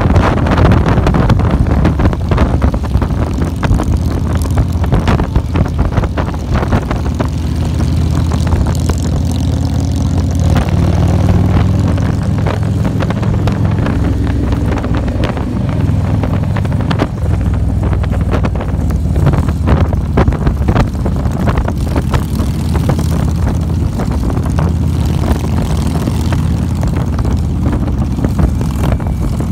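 Motorcycle engine running at road speed, heard from the rider's seat, its note shifting up and down now and then, with wind buffeting the microphone.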